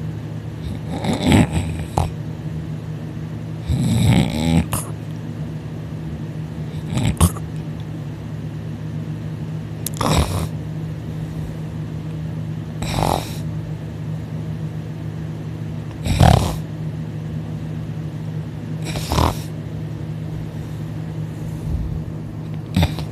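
A sleeping man snoring loudly, one snore about every three seconds, eight in all, over a steady low hum.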